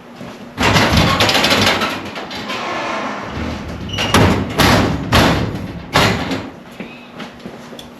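Handling noises: a rustling scrape for a second or so, then a few sharp knocks and thuds as objects are moved about.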